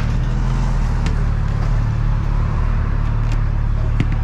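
Yamaha YS125 single-cylinder motorcycle engine running steadily after a full service, with a few short clicks.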